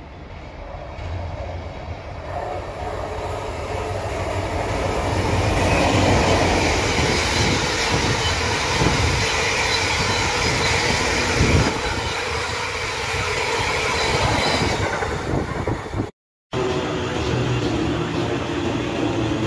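A train approaching and running through the station, building louder over the first six seconds and staying loud, with rumbling and wheel clatter. About 16 seconds in the sound cuts off abruptly and another stretch of train noise with a low hum follows.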